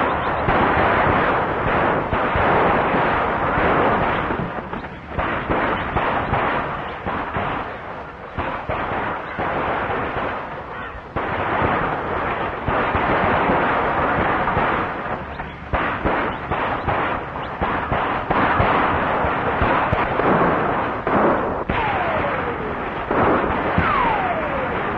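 Repeated gunshots over galloping horses' hooves on an old film soundtrack, with two falling bullet-ricochet whines near the end.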